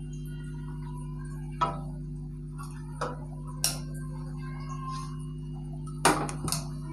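Wire-mesh skimmer clinking and scraping against a metal kadai while fried onions are lifted out of hot oil: a sharp knock about a second and a half in, two more around three seconds, and a quick run of clinks near the end, over a steady low hum.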